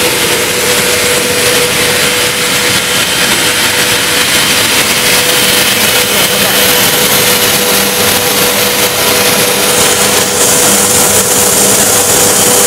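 Die-face pelletizer of a plastic single-screw extrusion line running. The motor-driven cutter spins behind its window, and there is loud, steady rushing air with a constant hum. The high hiss grows brighter about ten seconds in.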